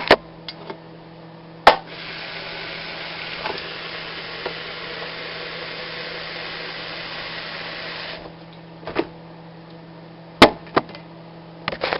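Water running from a kitchen tap into a coffee maker's carafe for about six seconds, filling it, then shut off abruptly. A sharp knock comes just before the water starts, and a few knocks follow as the carafe is handled.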